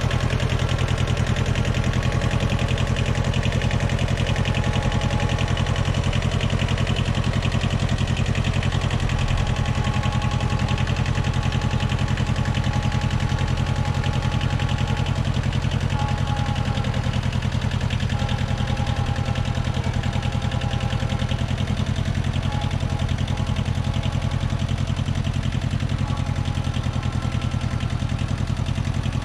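Zen-Noh ZB6000 compact tractor's engine running steadily at a constant speed.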